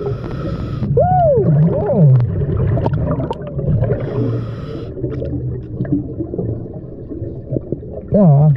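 Scuba diver's muffled voice underwater through the regulator: short hoots that rise and fall in pitch about a second in and again near the end. Two hissing regulator breaths come at the start and about four seconds in, over a steady low underwater rumble.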